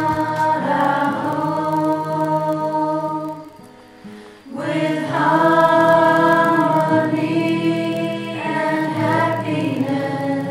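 A small group of voices singing together to an acoustic guitar. The singing breaks off briefly about four seconds in, then resumes.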